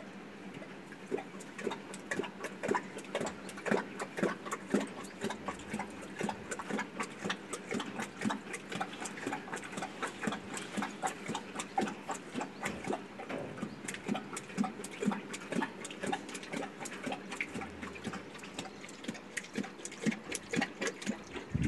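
Asiatic lion lapping water from a concrete trough: a quick, irregular run of wet laps and splashes, about three a second.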